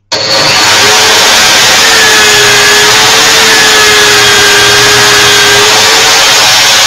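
Corded electric drill, clamped in a bench stand and spinning a polishing wheel, starts at full speed and runs loud and steady with a high whine, while a damascened steel pendant is held against the wheel to polish the pitted steel smooth.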